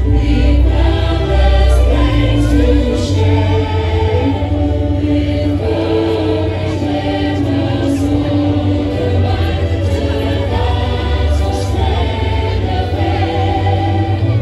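Music: a choir singing long held notes over a heavy, steady bass.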